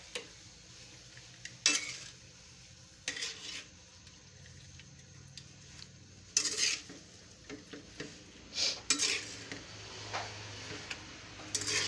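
Metal spoon scraping and clinking against a metal pan while stirring jackfruit strips in sugar syrup, in about six irregular strokes a second or more apart.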